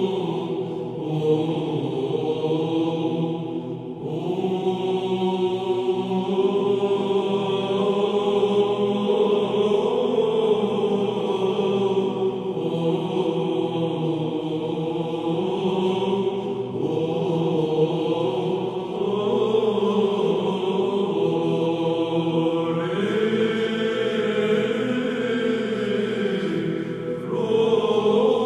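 Greek Byzantine choir chanting a slow, melismatic hymn in the plagal second tone, the voices moving together over a steady held drone note.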